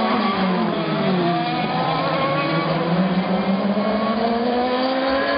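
Race car engines coming through a corner: the engine note drops as the cars slow for the turn, then rises steadily in the second half as they accelerate out. Several engine notes overlap.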